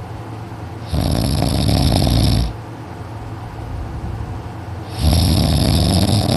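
A sleeping teenager's heavy, very loud snoring: two long snores, each about a second and a half, some four seconds apart, with a steady low hum in between.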